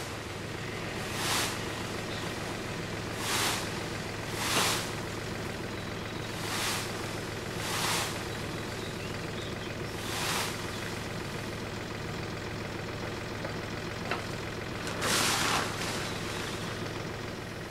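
Large plastic sheeting rustling and crackling as it is pulled over a frame, in about seven short irregular bursts, over a steady low hum.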